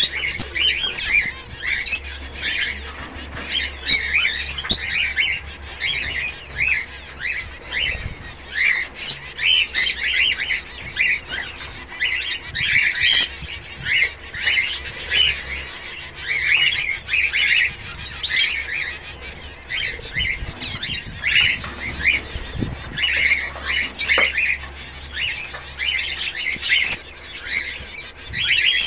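A flock of zebra finches calling constantly: many short calls overlapping, several a second.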